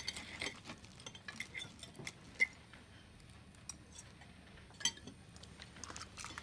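Fork clinking and scraping on a china plate as a piece of strudel is cut and lifted, in light, scattered clicks, with two sharper clinks about two and a half and five seconds in.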